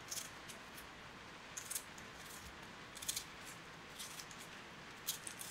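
Kitchen knife slicing through an onion held in the hand: faint, short, crisp cuts coming irregularly, about one a second.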